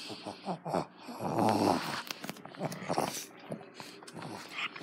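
A dog making a low, noisy sound lasting about half a second, a little over a second in, among scattered short clicks and knocks.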